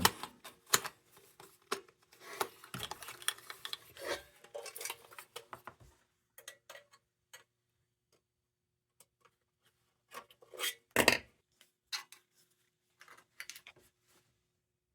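Sheet-metal lantern parts being handled and fitted: a run of light metallic clicks, clinks and scraping, a pause, then a sharper knock about eleven seconds in followed by a few more clicks.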